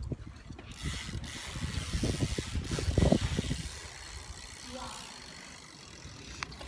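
Bicycle riding: rolling noise and wind gusting on the microphone for the first few seconds, loudest about three seconds in, then settling down.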